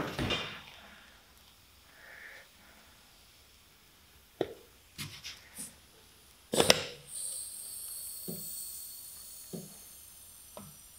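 Handling noise as a rubber CV joint boot is stretched over a plastic boot-expander tool: scattered clicks and knocks, one sharp snap about six and a half seconds in, then a faint high squeak of stretched rubber that slowly fades, with a few soft thuds.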